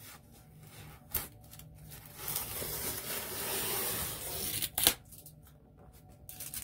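Packing tape being pulled off a box: a single click about a second in, then a long tearing rasp lasting about two and a half seconds that ends in a sharp snap.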